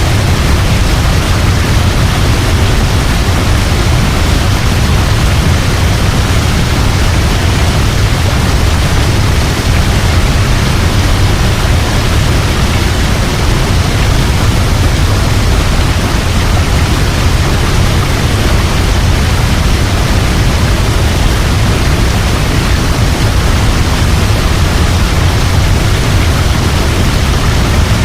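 Waterfall: a steady, loud rush of falling water, even throughout, heaviest in the low rumble.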